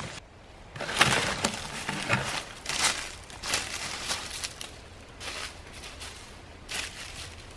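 Footsteps crunching through dry fallen leaves and twigs, an irregular crackle about once a second.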